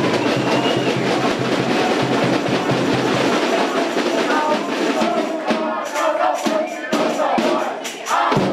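Loud music with drums and percussion over a dense crowd noise; in the second half sharp drum strikes come several times a second.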